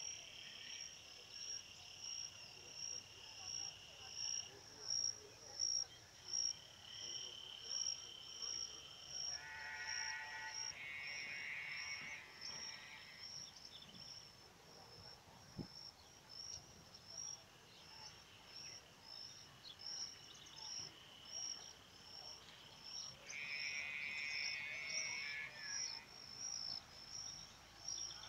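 A chorus of calling insects and frogs: a high chirp repeats about twice a second throughout, with longer buzzing trills that come and go, strongest in the middle and near the end.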